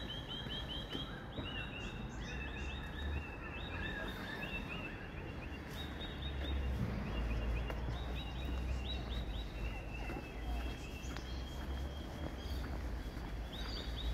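Birds calling in the bush: quick series of short, high chirps repeated over and over, over a steady low rumble.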